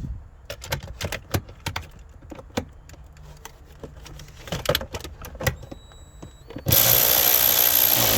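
Scattered clicks and knocks of tools against metal, then about seven seconds in a power driver runs for about two seconds, tightening a bolt on the gear shifter's mounting, and winds down as it stops.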